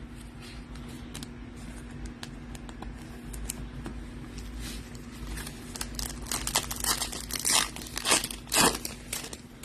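Foil trading-card pack wrapper being handled, then crinkled and torn open. Light scattered rustles come first, and the loudest crinkling and tearing comes in the last few seconds.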